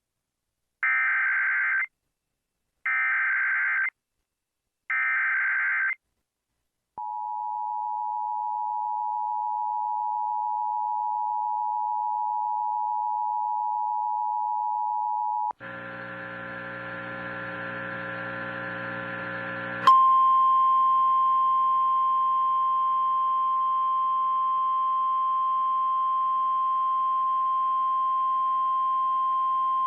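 Emergency Alert System tones announcing a tornado warning: three roughly one-second bursts of screeching SAME header data, then the two-tone attention signal held for about eight seconds. After a few seconds of buzzing hum, a click and the NOAA Weather Radio 1050 Hz warning alarm tone held steady.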